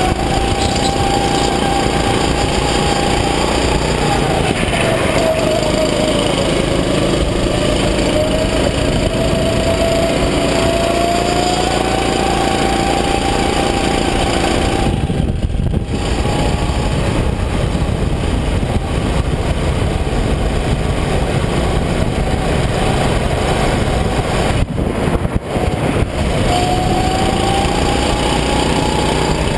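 Rental go-kart engine running hard under the driver, its note dropping about four seconds in and climbing back over the following several seconds, then rising again near the end as it accelerates.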